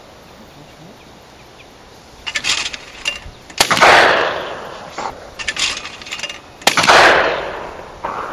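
Two shotgun shots at clay targets, about three seconds apart, each ringing out and dying away over about a second. A short clatter of clicks comes just before each shot.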